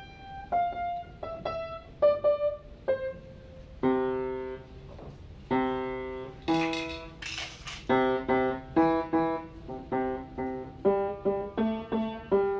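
Upright piano played by a young child: single notes stepping down in pitch over the first few seconds, then several keys struck together. A loud jumble of keys comes around the middle, followed by notes and chords struck about twice a second.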